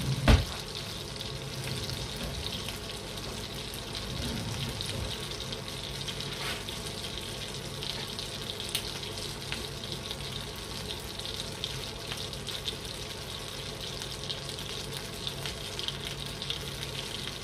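Butter melting in hot oil in a frying pan on a low flame, sizzling steadily with fine crackling. There is a single sharp knock right at the start.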